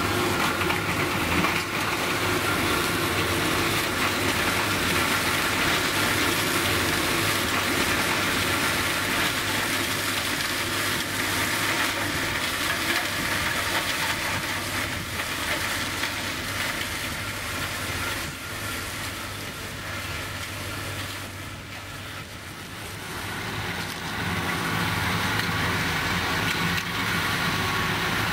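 Tractor engine running under load while it drives a trailed multi-rotor rotary mower whose blades chop through rough grass and saplings: a steady mechanical drone that eases off in level for a few seconds past the middle, then returns.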